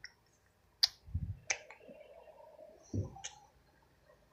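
Handling noise from a handheld phone: a few sharp clicks and two dull thumps, with a faint steady tone for about a second and a half in the middle.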